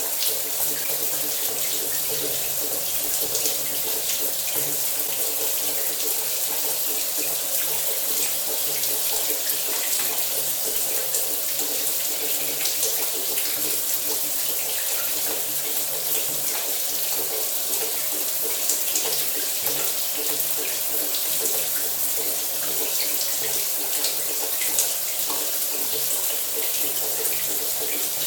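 Shower running steadily: a continuous hiss of falling spray, with a faint low hum underneath.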